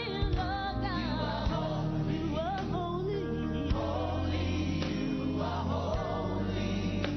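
Gospel worship music: voices singing together over held bass notes, with a few drum hits.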